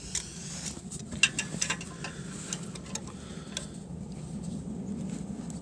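A few sharp, irregular metallic clicks and taps of hand work on a small part of a sawmill saw head being squeezed shut, over a steady low hum.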